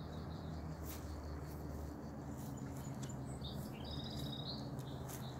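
Small birds chirping and trilling, over a steady low hum.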